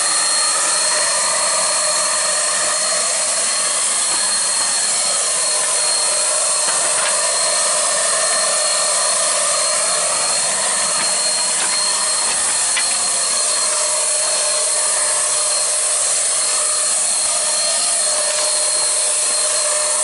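Electric turbine (HVLP) paint spray gun running steadily while spraying wood preservative paint onto wooden boards: a loud, even rush of air with a thin, steady high whine over it.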